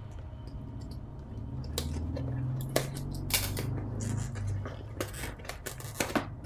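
Small cardboard box being opened by hand: scrapes and sharp clicks of its tape and flaps at irregular moments, over a steady low hum.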